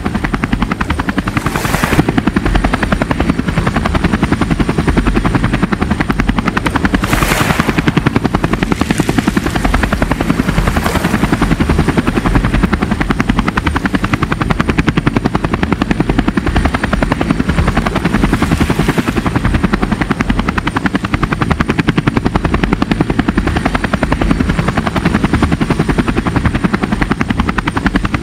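Boat engine running steadily with a rapid, even throb. A few brief rushing noises come through about 2, 7 and 11 seconds in and again near 19 seconds.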